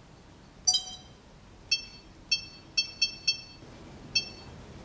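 Sony Handycam camcorder giving its short electronic touch-panel beeps as its screen is tapped, one beep for each registered touch. Seven beeps in all: the first, about a second in, has a slightly different tone; five follow in a quick irregular run, and a last one comes near the end.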